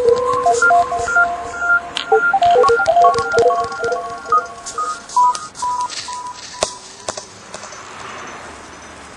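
Electronic beeps like telephone dialing tones: short steady tones, often two at once, hopping quickly between pitches, with scattered clicks. The beeping thins out and gives way to a soft steady hiss about three quarters of the way through.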